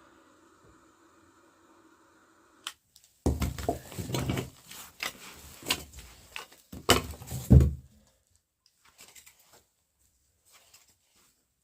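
Close-up handling noise: a click, then a few seconds of loud rustling and clattering with heavy knocks, then a few faint ticks.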